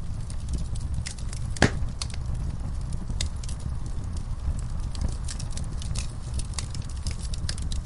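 Wood fire burning, with irregular crackles and small pops over a low steady rumble. One loud sharp pop comes about a second and a half in.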